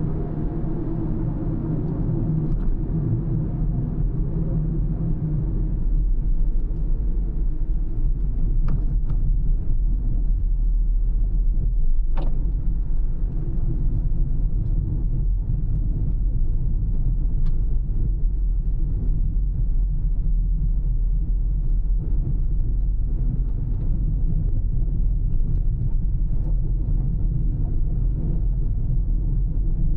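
A car driving along: steady low rumble of tyre and engine noise, a little louder from about six seconds in, with a few faint ticks.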